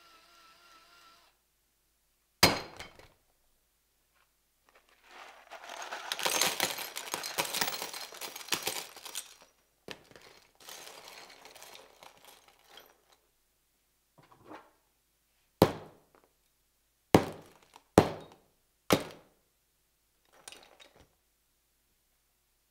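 An electric drill whirs faintly and stops about a second in. Then comes a sharp clank, a long clatter of loose steel nails and sockets tumbling onto a phone and a tool mat, and later a series of sharp metal clanks as heavy hand tools are dropped down one at a time.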